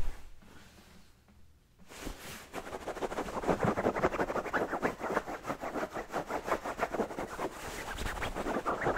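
Fingernails scratching quickly and continuously on a shiny patterned fabric pillowcase, in many fast rhythmic strokes that start about two seconds in. A single thump comes right at the start.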